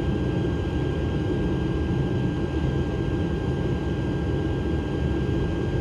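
Steady flight-deck noise of a Boeing 777-300ER on final approach: an even rush of airflow and engine rumble, mostly low, with a thin steady high whine over it.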